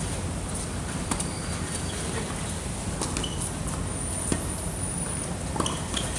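Tennis rally: about four sharp racket-on-ball hits, starting with a serve about a second in, the loudest a little past four seconds in, over steady outdoor background noise.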